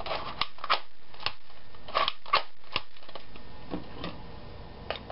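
About ten sharp plastic clicks at uneven intervals, with light rustling, from hands handling a clear plastic Nerf N-Strike Maverick blaster.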